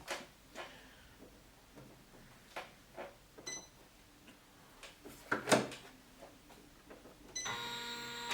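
Scattered clicks and knocks as the Janome 500E embroidery machine is handled and its controls pressed, with a short electronic beep about three and a half seconds in. Near the end the machine starts running with a steady whine.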